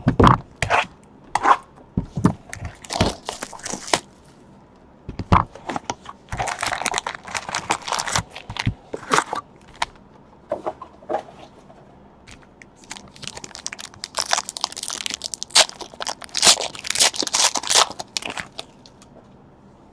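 A cardboard trading-card box being opened with a run of sharp knocks and scrapes. Then a foil card pack is torn open and crinkled, in two long spells of rustling.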